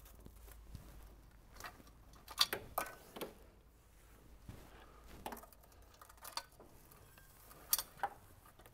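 Light metallic clinks and knocks, scattered and a few seconds apart, as an aluminium intake manifold with fuel rails is set down on an LS V8 and shifted into place.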